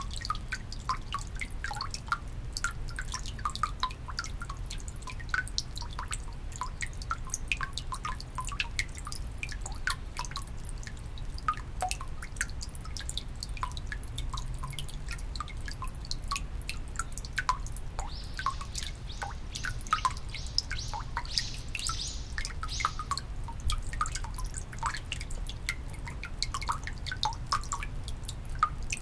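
Water of a shrine's temizuya purification basin dripping and splashing, many quick irregular drops, over a steady low rumble.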